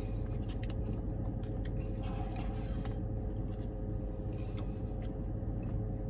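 Red plastic spoon scraping and clicking in a paper Dairy Queen Blizzard cup, a few soft scrapes scattered through, over the steady hum of a car's cabin.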